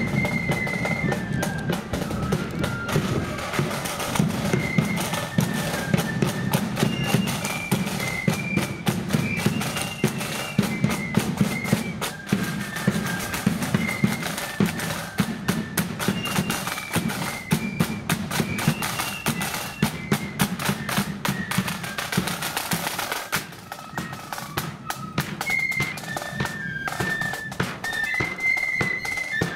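Marching flute band playing: a melody on the flutes over snare and bass drums, with the drums and flutes dropping back briefly about three quarters of the way through.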